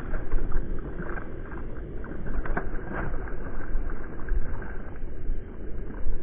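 Low, steady noise of wind on the microphone and water lapping against a fishing kayak's hull, with a few faint clicks a few seconds in.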